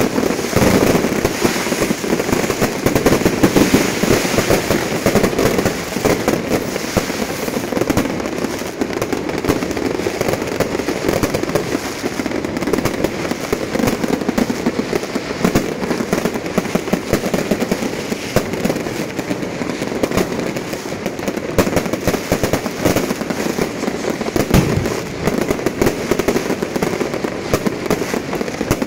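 Fireworks and firecrackers going off in a dense, continuous barrage of crackling pops.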